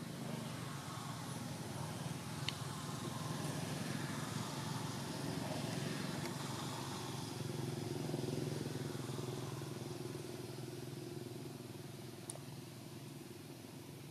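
Low engine hum of a motor vehicle going past, swelling to its loudest midway and then fading away, with two faint sharp ticks.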